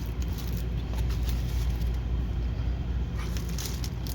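A steady low hum with faint rustling and light clicks of diamond painting kit packaging being handled.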